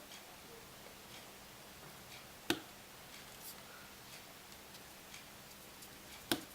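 Faint ticking of small tools on metal, with two sharp clicks about two and a half seconds in and near the end, as tiny screws are worked out of an iPhone 5 screen's metal back shield.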